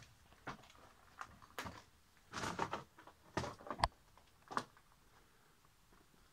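Irregular footsteps crunching and scraping on concrete rubble and grit, with one sharp knock near four seconds in.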